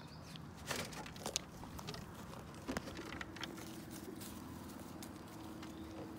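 Chickens pecking and scuffling in grass: rustling with a few sharp clicks in the first half, over a faint steady hum that begins about halfway through.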